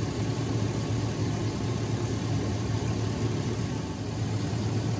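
The 5.3 L V8 of a 2002 GMC Sierra idling steadily with the hood open, running during the coolant refill after a water pump replacement.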